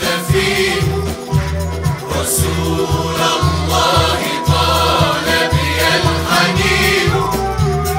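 A male soloist and a mixed choir singing an Arabic devotional praise song (madih of the Prophet) together, over band accompaniment with a steady low beat.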